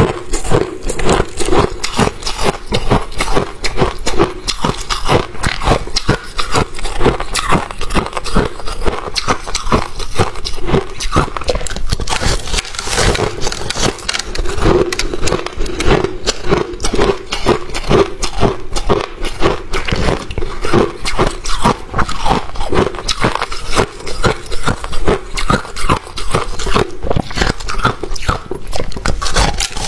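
Crushed freezer ice crackling and crunching as it is handled and squeezed: a dense, unbroken run of small sharp cracks and scrapes.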